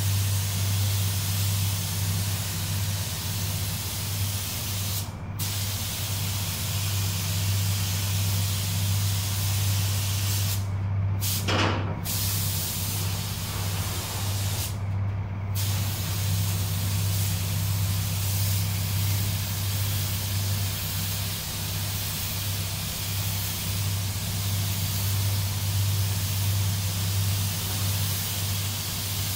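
Air spray gun hissing steadily as it lays on a second coat of 2K clearcoat, cutting out briefly about four times as the trigger is let go, with a steady low hum underneath.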